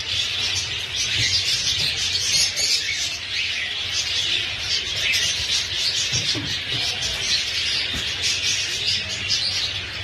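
Continuous chirping and twittering of many small caged birds at once, white-eared bulbuls among them, over a low steady hum.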